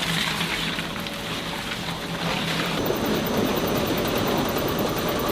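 Industrial shredding machine running: a dense, steady mechanical noise that grows heavier about three seconds in.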